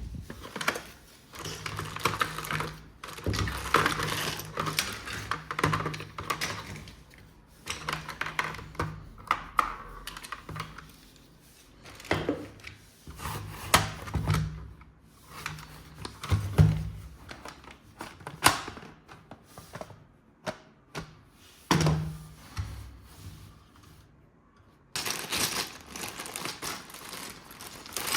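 Plastic toy parts and packaging being handled: irregular clicks, knocks and rustling, with short pauses in between.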